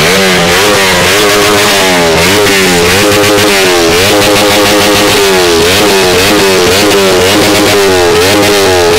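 Motorcycle engine revved loudly over and over, its pitch rising and falling in repeated blips about once a second.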